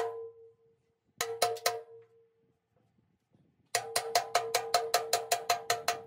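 Hammer blows on a steel part, each strike ringing on with a metallic tone. There are four quick strikes about a second in, then a faster run of about a dozen strikes from near four seconds on.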